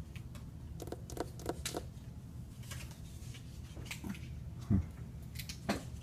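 A sleeping cat snoring, a low steady rattle, with scattered soft clicks and a low thump about three-quarters of the way through.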